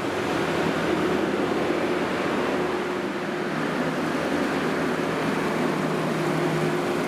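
New Holland skid-steer loader's engine running steadily, its hum holding one pitch, under a steady rushing noise.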